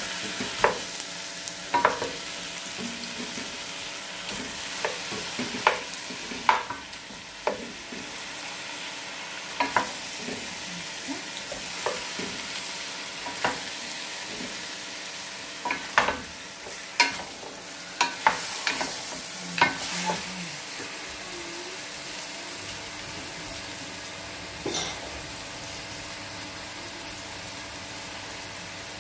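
Marinated chicken pieces sizzling as they are sautéed in a stainless steel pot, with a wooden spatula stirring and knocking against the pot. The knocks come often for the first two-thirds and then stop, apart from one more near the end, while the sizzling goes on.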